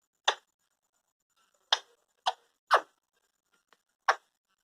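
Indian ringneck parrot giving five short calls at uneven spacing, the angry scolding calls of an agitated pet parrot.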